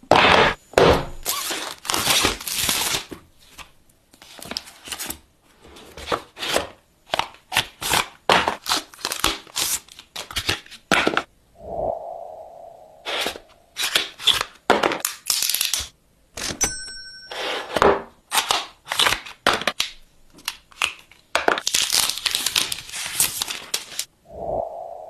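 Phone unboxing handling sounds: packaging crinkling and tearing, the box and its parts sliding and clicking, with many sharp taps and snaps in quick succession. A short buzz sounds twice, about halfway through and near the end, and a few thin electronic beeps come about two-thirds of the way in.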